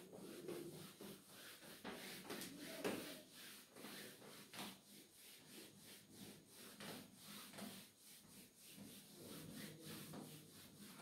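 Whiteboard duster rubbing across a whiteboard in a faint series of repeated wiping strokes as the board is erased.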